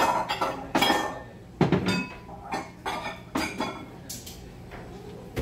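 Bowls clinking and knocking against each other and the shelf as they are taken out of a kitchen cabinet: a string of sharp clinks with brief ringing, the loudest about a second and a half in.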